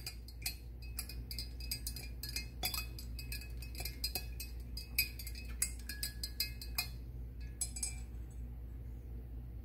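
A thin stirring rod clinking and tapping against the inside of a glass jar as a liquid chemical mix is stirred. There are quick, irregular clinks for about seven seconds, then a couple more before eight seconds, and then they stop.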